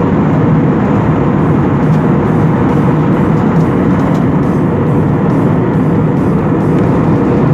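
Steady rushing noise of a jet airliner's cabin in flight: engine and airflow noise heard from a window seat, even and unbroken.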